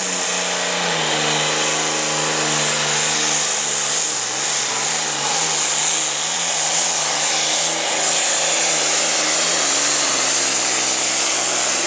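Hot farm class pulling tractor's engine running flat out on a pull down the track, a steady loud drone whose pitch wavers briefly about halfway through before settling again.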